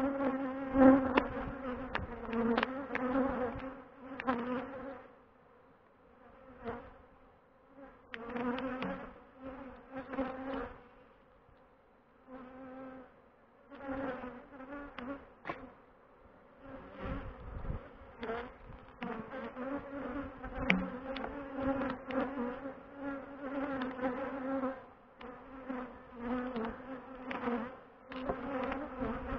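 Honey bees buzzing around an open hive, single bees flying close past the microphone so the buzz swells and fades again and again. Occasional sharp clicks sound through the buzzing.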